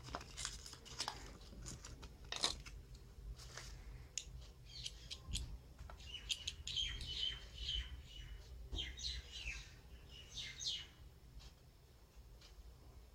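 Scattered clicks and light handling noise as small combination padlocks are unpacked. Birds chirp in the background for several seconds around the middle, a run of short, high, falling calls.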